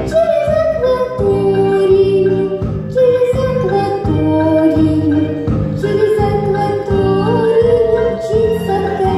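A young girl singing a song into a microphone, amplified through loudspeakers, over instrumental accompaniment with a steady beat.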